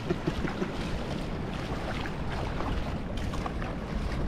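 Wind buffeting the microphone over the steady wash of shallow sea water on a reef, with a few light splashes of feet wading.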